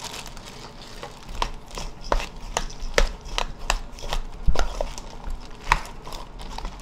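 A gloved hand tossing sliced onion and chilies in chili flakes and soy-sauce seasoning in a stainless steel bowl: irregular clicks and knocks as the pieces hit the metal, about two or three a second, starting about a second in.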